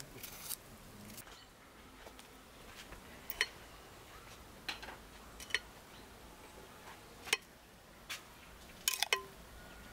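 Scattered light clinks and knocks of dishes and utensils being handled, about half a dozen spread out, one with a short ring.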